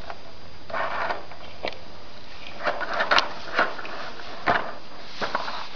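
Red plastic baby walker rolling in short, irregular spurts over a tile floor, with light clicks and rattles from its wheels and frame.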